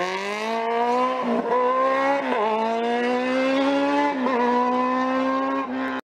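High-revving engine accelerating hard through the gears: its pitch climbs, dips briefly at each of three upshifts, and cuts off suddenly near the end.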